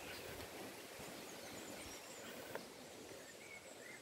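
Faint steady hiss of wind and drizzle in the forest, with a few short high bird chirps in the second half and a single click about two and a half seconds in.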